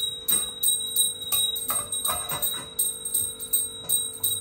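A bell-like music cue or sound effect: several steady ringing tones over a tick about three times a second, then it cuts off suddenly.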